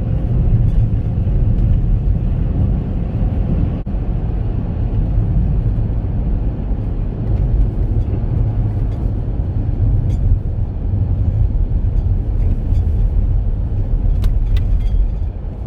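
Steady low rumble of a Chevrolet Captiva driving on a snow-covered road, engine and tyre noise heard from inside the cabin. A few faint ticks come near the end.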